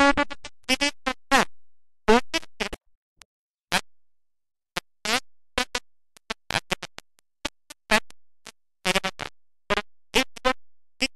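A woman's voice reading aloud in short broken fragments, each cut off abruptly with dead silence between them, so the speech comes through choppy and garbled.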